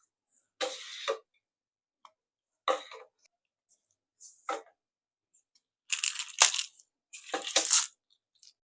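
Five short bursts of handling noise, each a sharp click or clink followed by a brief clatter or rustle. The last two, about six and seven seconds in, are the longest and loudest.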